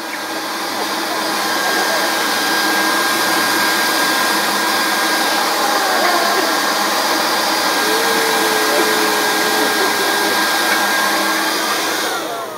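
Corded electric leaf blower running steadily: a rush of air with a thin high whine over it. Near the end it is switched off and winds down.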